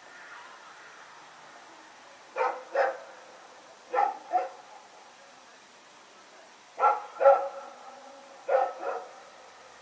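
Belgian Malinois barking in quick double barks, four pairs about two seconds apart, with a short gap before the first pair.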